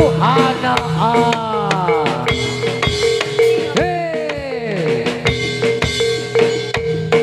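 Live jaranan music played by a Javanese gamelan-style ensemble: drums beaten in a brisk rhythm under a held ringing tone, with a melody line that swoops up and down in pitch.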